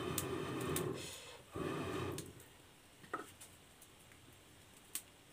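Breath blown hard through a blow pipe into a wood fire to fan it up: two long, hollow, breathy blasts that ring in the pipe, the first about a second long, the second shorter, followed by a small click near the end.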